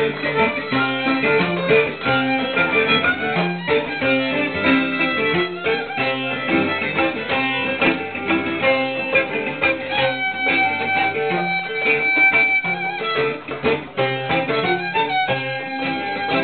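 Traditional Greek dance music: a violin melody over a steady plucked-string accompaniment.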